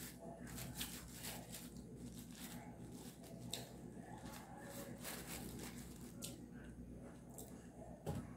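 Faint eating sounds: chewing acarajé, with small clicks and rustles as a fork picks at the fritter and its paper wrapping, over a low steady hum.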